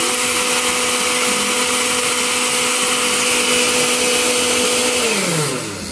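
Oster countertop blender running steadily as it purées tomato, onion and garlic into a liquid. About five seconds in it is switched off and the motor winds down, its pitch falling.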